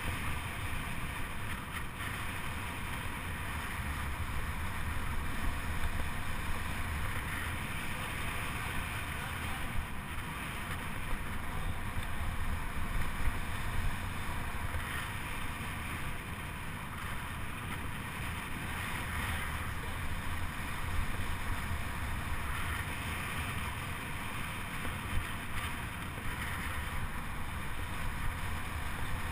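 Steady wind noise buffeting the microphone over a constant low rumble, as of a bicycle riding around the velodrome track.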